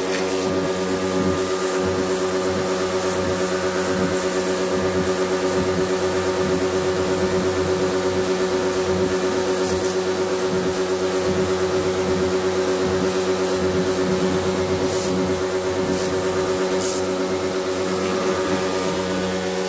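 Electric pressure washer running under load, its motor-driven pump giving a steady multi-tone hum, with the hiss of the high-pressure water jet spraying onto a window air conditioner's condenser coil.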